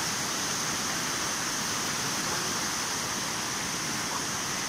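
Steady rushing of knee-deep floodwater flowing along a path.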